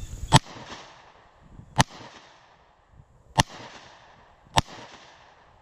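M14 rifle (7.62×51 mm) firing four single shots at an uneven pace, a little over a second apart, each crack trailing off in a brief echo.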